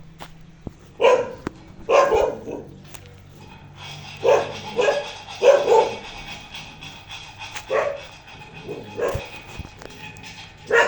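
A dog barking in short single barks, about nine of them at uneven intervals, some in quick pairs.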